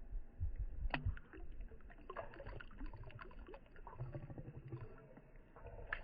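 River water sloshing with small splashes and scattered clicks and knocks, the loudest about a second in, over a low rumble on the microphone.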